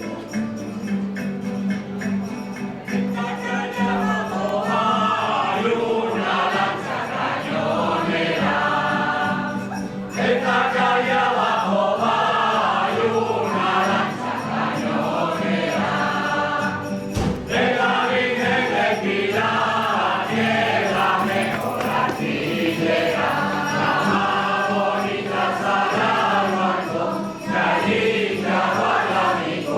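A group of folk singers singing a traditional Castilian ronda song in chorus, phrase after phrase with short breaks between verses, with a tambourine keeping time.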